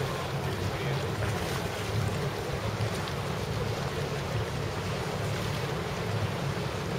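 Steady wind noise on the microphone over harbour water and boat noise.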